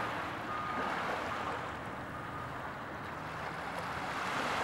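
Sea surf washing onto a shore: a steady hiss that ebbs about halfway through and swells again near the end.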